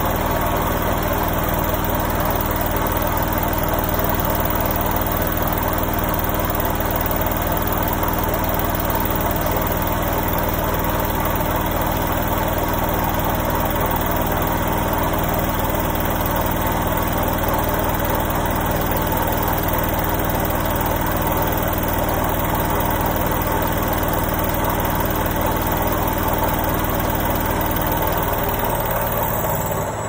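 Indesit front-loading washing machine spinning, its drum turning fast with a loud, steady hum. The low hum starts to change pitch near the end as the drum's speed changes.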